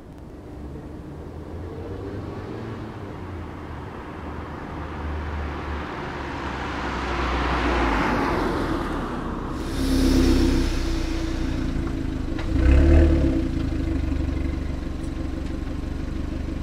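A car approaching and driving past, its sound rising to a peak about eight seconds in. Then, close behind the tailpipe, a Fiat 500 Abarth's 1.4-litre turbo four-cylinder idling through its original exhaust, revved briefly twice.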